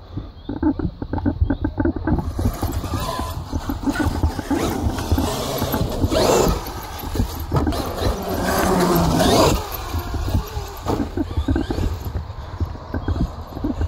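Electric RC trucks driving: motors whining up and down and tyres scrabbling and scraping over the ground. The truck is louder twice, briefly about six seconds in and again for a second or so around eight to nine seconds in.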